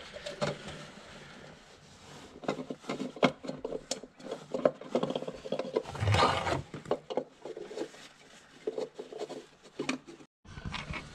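Hands refitting a plastic oil filter housing in a Lamborghini Gallardo's engine bay: irregular rubbing, scraping and small clicks as the housing is threaded in and hand-tightened. The scraping is loudest about six seconds in.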